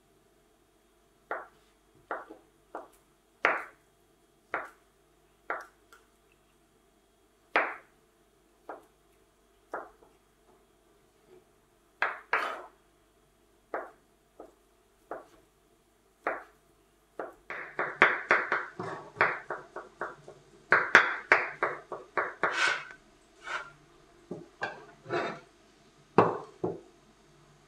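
Kitchen knife cutting a boiled potato on a wooden cutting board: single slicing strokes, each a sharp knock about once a second at first, then a fast run of chopping knocks as the potato is diced. Near the end, a few more knocks as the diced potato is scooped up with a metal bench scraper.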